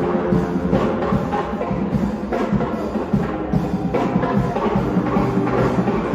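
Music with a steady beat, drums and percussion.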